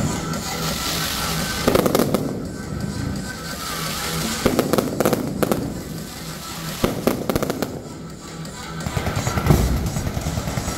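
Fireworks shooting up in volleys of crackling, rising streaks, with bursts of cracks about two seconds in, around five seconds, near seven seconds, and a denser run near the end. Music plays underneath.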